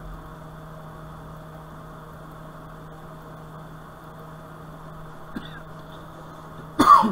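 Steady low electrical hum of workbench equipment, with a faint click about five seconds in and a short loud noise near the end.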